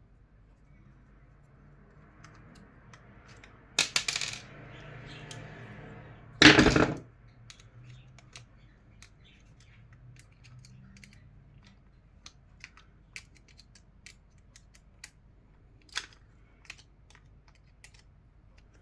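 Small clicks and clatter of fan parts being handled as an electric fan is taken apart. There is a burst of clatter about four seconds in, a loud knock about six and a half seconds in, then sparse light clicks.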